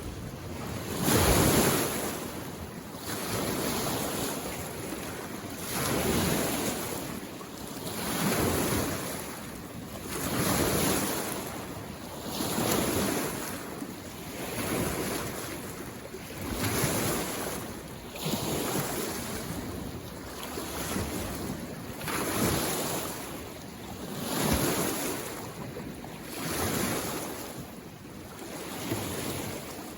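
Small lake waves lapping and washing onto the shore, one swell about every two seconds, each rising and falling away.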